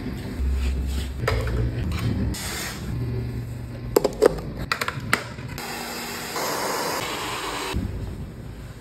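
Background music with a low bass line, over which a quick run of sharp clicks, like a wall light switch being flicked, comes about four seconds in. Stretches of soft hissing noise follow, the longest in the second half.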